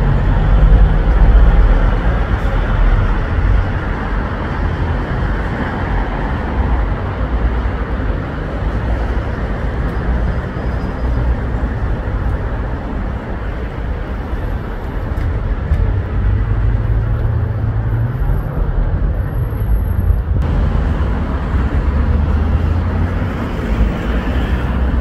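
City road traffic: a bus passing close by at the start, loudest then, followed by a steady rumble of passing cars and other vehicles.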